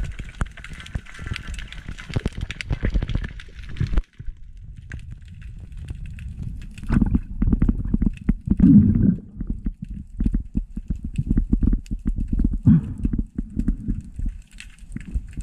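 Muffled underwater sound heard through an action camera's waterproof housing: a hissing wash for about four seconds, then a dense run of irregular low knocks and clicks, loudest near the middle, from the speargun and line being handled with a speared fish on it.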